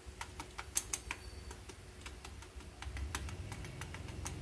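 Faint crackling of freshly fried, batter-coated mushroom pieces: irregular sharp ticks, a few a second, over a low hum.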